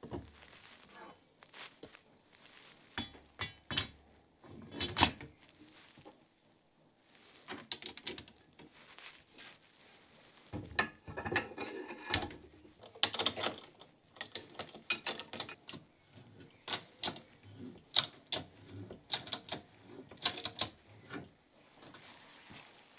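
Irregular clicks, knocks and clatter of a motorcycle rear shock absorber, its coil spring and a steel top plate being handled and fitted together on a bench-top spring compressor.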